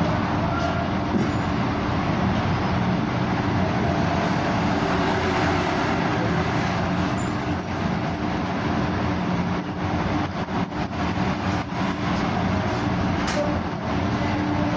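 Busy street traffic: the engines of passing and idling vehicles run steadily, with a few light knocks and clatters through the middle.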